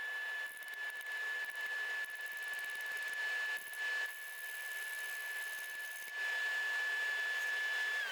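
A workshop machine's electric motor running with a steady high whine over a varying rasping hiss of a tool cutting MDF on the lathe. Right at the end the motor is switched off and its whine begins to fall as it spins down.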